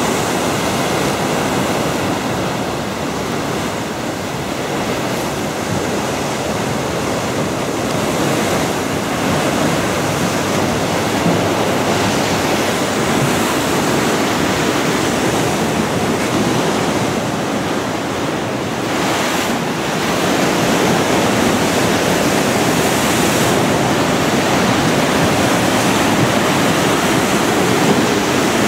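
Rough sea breaking and surging against a stone seawall: a continuous rush of surf and churning foam, growing a little louder about two-thirds of the way through.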